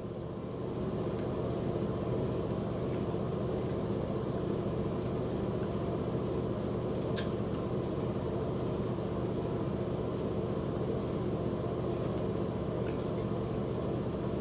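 Steady low machine hum, a little louder from about a second in.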